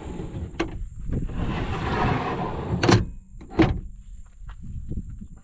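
Alu-Cab metal sliding drawers being pushed shut. A light knock is followed by a rumble as a drawer rolls along its runners, then two sharp clunks less than a second apart as the drawers close.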